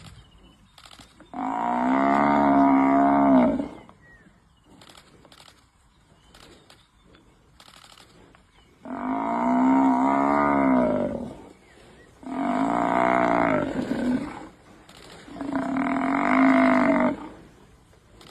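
Cattle mooing: four long, drawn-out calls of about two seconds each, with short pauses between them.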